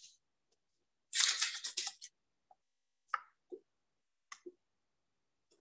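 Paper and a wooden ruler handled on a table: a scratchy rustle lasting about a second as the ruler is shifted on the paper, then four soft taps.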